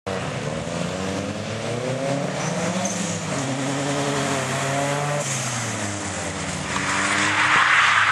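Nissan 240SX drift car's engine revving up and down as it accelerates, then its tyres squealing loudly in a slide from about seven seconds in.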